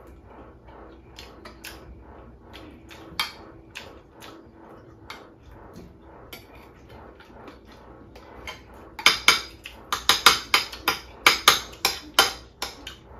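Forks and spoons clinking and scraping on dinner plates as people eat, scattered soft clicks at first, then a quick run of louder clinks in the last few seconds.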